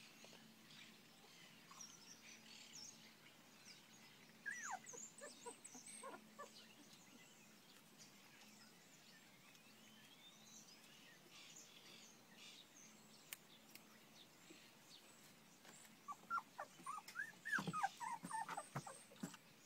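Young puppies whimpering faintly: a few short falling squeals about four to five seconds in, then a run of squeaks near the end.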